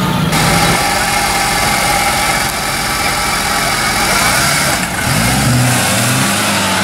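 Suzuki SJ-series off-road 4x4 engine running. From about five seconds in it revs up and down as the vehicle works along a muddy track.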